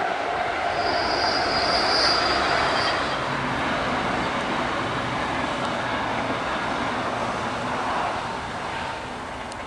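NS electric passenger train passing close by: a steady rush of wheels on rails, with a thin, high squeal from about one to three seconds in. The sound eases a little near the end.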